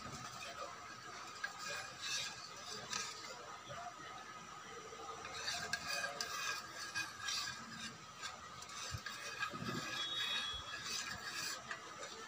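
Metal spoon stirring and scraping in a ceramic bowl of sauce, in several short bouts of clinks, over a faint steady hum.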